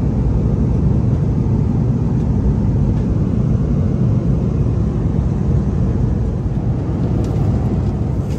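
Steady low rumble of an Airbus A330-200 cabin in flight, the engine and airflow noise heard from a passenger seat.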